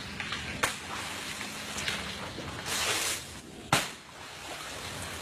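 Dry palm fronds and coconut stalks cracking and rustling: several sharp snaps, the loudest about three-quarters of the way through, with a short rustling hiss just before it.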